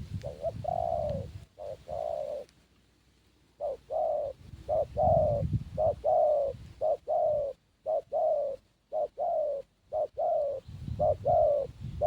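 Spotted dove (terkukur) cooing: a run of short coo notes, each sliding slightly down in pitch, delivered in quick groups, with a pause of about a second near three seconds in before the cooing resumes.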